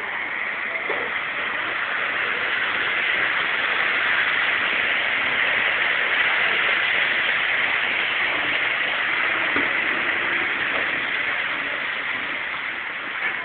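Steady hiss of rain and tyres on a wet freeway. It swells a little over the first half and eases off near the end.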